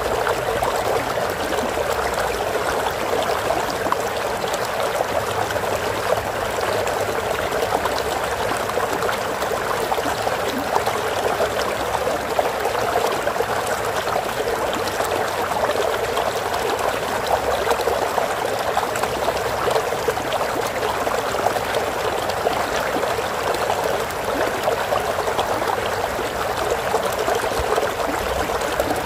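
Running water of a stream, flowing steadily with an even rushing babble that does not change.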